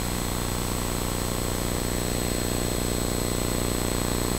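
Steady low hum with a buzz and an even hiss, unchanging throughout, with no speech.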